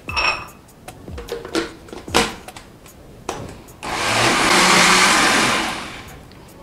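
Countertop blender running for about two seconds, blending pancake batter, then winding down. Before it, a few clicks and knocks as the plastic lid is fitted onto the jar.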